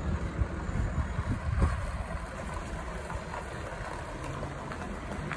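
Wind rushing over the microphone of a camera on a moving bicycle: a rumbling noise that is gustier for the first two seconds, then steadier.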